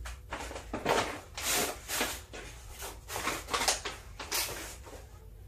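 Tissue paper rustling and crinkling inside a paper gift bag as hands rummage through it, in a string of irregular bursts.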